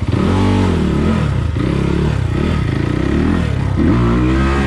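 Single-cylinder four-stroke engine of an SSR SR300 dirt bike fitted with a Lectron carburetor, revving hard. The pitch rises and falls about four times in quick succession.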